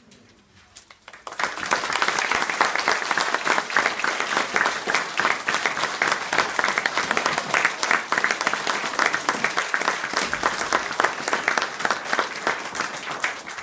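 Audience of schoolchildren applauding, starting after a brief hush about a second in, holding steady, and tailing off near the end.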